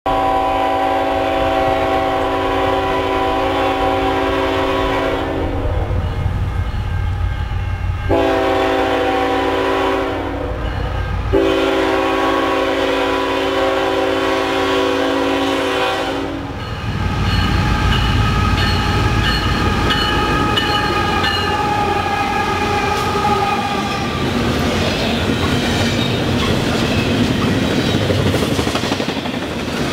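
Diesel freight locomotive horn (CN ET44AC) sounding three blasts for a grade crossing, the first and last each held about five seconds, over the low rumble of the approaching locomotives. After the last blast the train's double-stack container cars roll past with a steady rumble, wheel clatter and high, steady squealing tones from the wheels.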